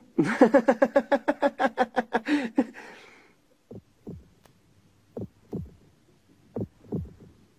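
Laughter of about eight quick 'ha' pulses a second for roughly two and a half seconds. From about midway, after a short pause, comes a cartoon heartbeat sound effect: paired thumps, each dropping in pitch, repeating about every second and a half.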